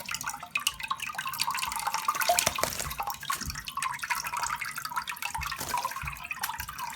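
Tap water running into cupped hands at a sink while a green-cheeked conure bathes in it, with many small splashes and drips as the bird flaps and dunks.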